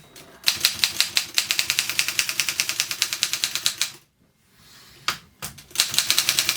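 Keys of a 1924 Continental manual typewriter being struck in a fast, even run of clicks for about three seconds. After a short pause comes a second brief run of keystrokes.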